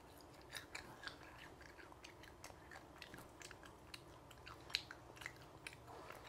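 A person chewing batter-fried coconut worms (palm weevil larvae) in the mouth: irregular crisp crunches of the fried batter. The sharpest crunch comes about three-quarters of the way through.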